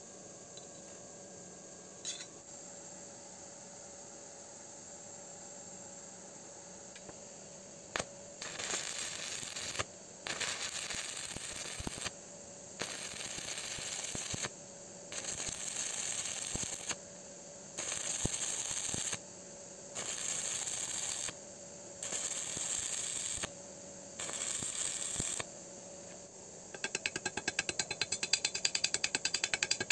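Stick (arc) welding on thin-wall steel square tube: the arc crackles and hisses in about eight short runs of a second or two, struck and broken again and again, the stop-start way of welding thin tube without burning through. Near the end a chipping hammer taps rapidly at the slag on the bead.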